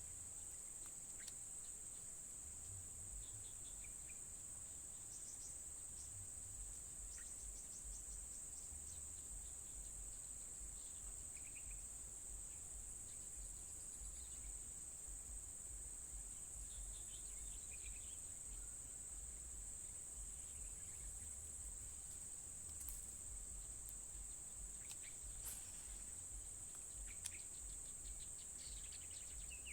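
Steady, unbroken high-pitched drone of an insect chorus, with scattered short bird chirps over it and a few faint clicks.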